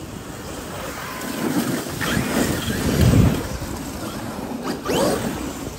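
Wind buffeting the microphone, with a loud low rumble about three seconds in and brief rising whines near two and five seconds in.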